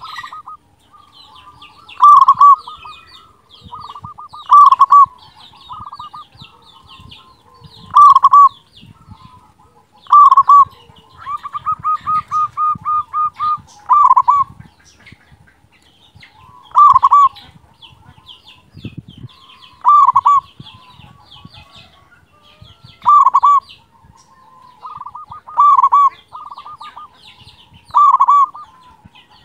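Zebra dove (perkutut) cooing in loud, repeated phrases about every three seconds. One phrase near the middle stretches into a quick run of about ten short notes. Small birds chirp faintly in the background.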